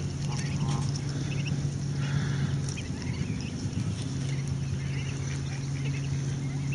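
Mallard ducklings peeping in short, scattered calls, with a few lower calls from the mallard hen, over a steady low hum.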